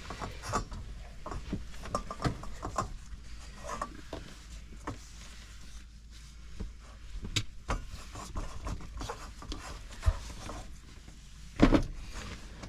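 Hands working soft pizza dough into a ring for an Omnia Oven pan, making scattered light taps and rubbing sounds, with one louder knock near the end.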